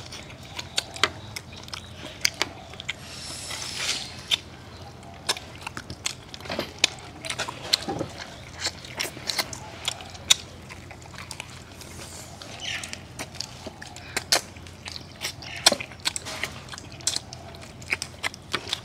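Close-up eating sounds: a man chewing roasted chicken with his mouth open, giving an irregular stream of wet smacking clicks.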